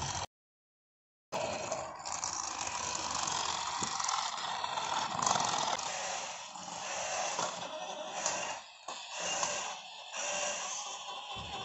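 Battery-powered toy car's small motor and plastic gears whirring and rattling as it runs along flexible plastic track. The sound cuts out completely for about a second near the start, then runs on steadily.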